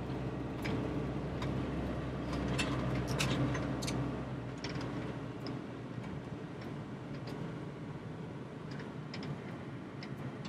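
Motorhome cab noise: the engine's low rumble runs and then dies away about halfway through, with scattered light clicks over it.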